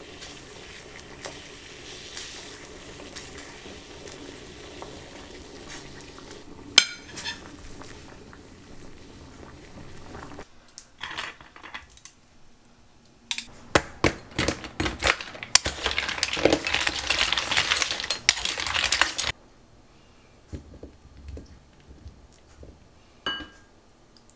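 Kitchen cooking sounds: dishes and utensils clinking and knocking, with a few seconds of loud, steady rushing noise in the middle.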